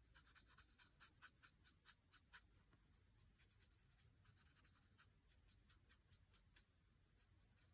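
Faint, quick scratchy strokes of a tool rubbing back and forth over dry-embossed card stock to blend the raised design, about four or five strokes a second at first, then lighter and sparser until they stop about six and a half seconds in.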